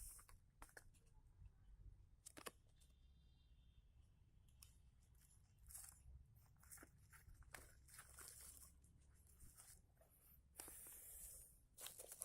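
Faint handling of packaging: scattered small clicks and rustles, with a brief louder rustle of tearing or crinkling packaging about ten and a half seconds in.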